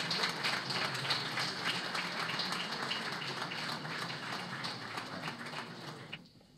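Audience applauding, a dense patter of many claps that slowly fades and dies away about six seconds in.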